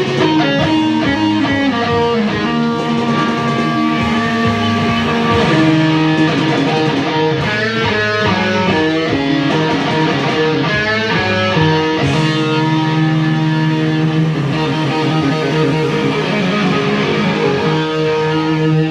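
Electric guitar music with a rock sound, sustained notes changing in steps.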